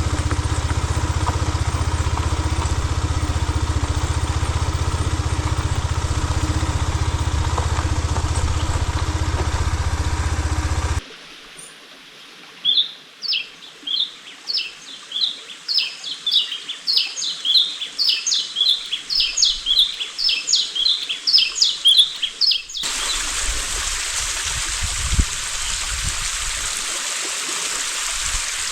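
A Benelli TNT 25 motorcycle engine running steadily with a low hum. About 11 s in it cuts abruptly to a bird singing a quick series of short, high chirps. About 23 s in it cuts to the steady rush of a stream.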